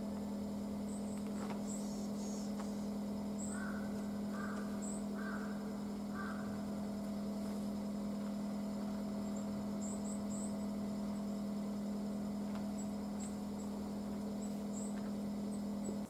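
A steady low hum runs throughout, with faint bird sounds over it. About three and a half seconds in comes a run of four short calls roughly a second apart, and scattered thin, high chirps are heard throughout.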